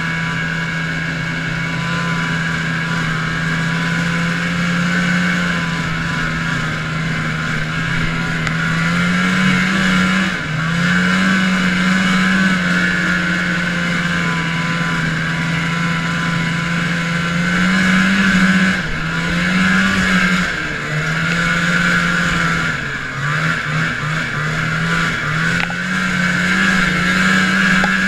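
1980 Arctic Cat Panther 440 fan-cooled two-stroke snowmobile engine running under way, its pitch rising and falling with the throttle. It eases off briefly twice, then gets several quick throttle blips about two-thirds of the way through before pulling steadily again near the end.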